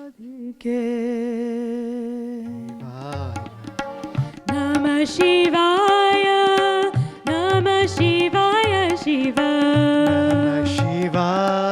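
Indian devotional music: a single held, wavering note, then a sung melody over tabla beats that come in about two and a half seconds in.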